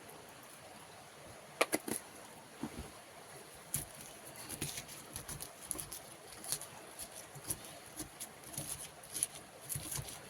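Irregular light clicks and taps of spices and kitchen utensils being handled during food preparation, the sharpest cluster about one and a half seconds in, over a faint steady high hiss.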